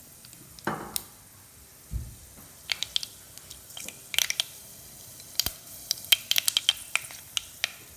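Mustard seeds popping in hot oil: scattered sharp pops over a faint sizzle, a few at first, then coming in quick clusters in the second half.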